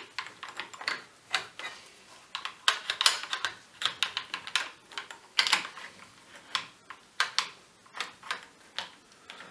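Irregular hard clicks and small clatters of a Rap4 T68 paintball marker's parts being handled, as a section on top of the gun is slid along its body and settled into place.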